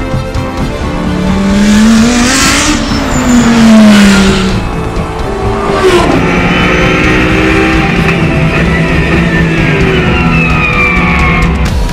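Lamborghini Huracán GT3's naturally aspirated V10 race engine at speed. Its pitch rises and then falls as the car sweeps past about two to four seconds in. From about six seconds it holds a steadier note.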